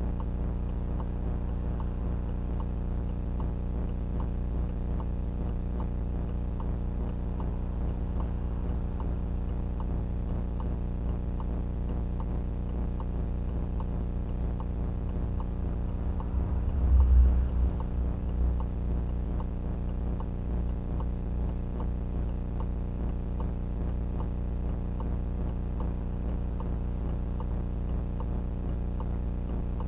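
VIOFO A119S dashcam audio track carrying a steady low hum with a regular ticking over it: the very loud noise that spoils the footage, which the uploader reports as a fault of the camera. About two thirds of the way through, a low rumble swells up for a couple of seconds.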